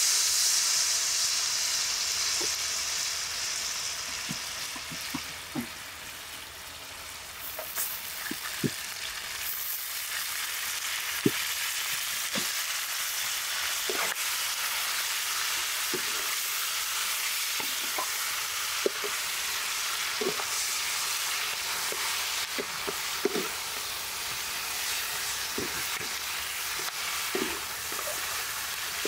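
Whole spices sizzling in hot oil in a wok, loud at first and dying down over the first few seconds. From about eight seconds in, pig intestines fry with a steady sizzle while being stirred with a wooden spatula, with scattered sharp pops and clicks.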